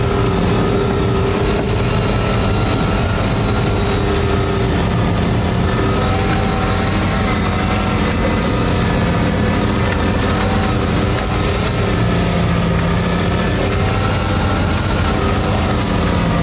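Fishing boat's engine running steadily while a deck winch hauls a rope in around its turning drum; the drone holds a constant level, its pitch wavering slightly.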